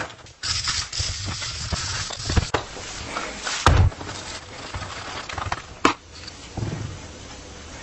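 Hand work on rusty metal bicycle parts: uneven scraping and rubbing, with a few sharp knocks.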